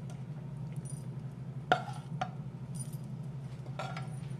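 A spoon clinking against a metal serving platter while rice, lentils and fried onions are stirred together: a few scattered clinks, the sharpest about a second and a half in, over a steady low hum.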